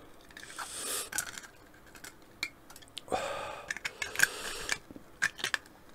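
Small sharp clicks and taps with two short rustling stretches: hands handling a hot sauce bottle and coating a chicken wing with sauce.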